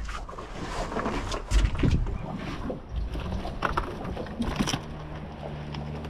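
Irregular knocks, taps and rustles of handling a freshly caught mangrove jack, with a heavier thump about a second and a half in. A steady low hum comes in a little before the end.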